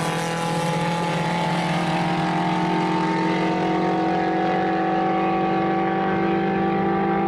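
Rally car engine held at high revs, its pitch sagging slowly and evenly over several seconds.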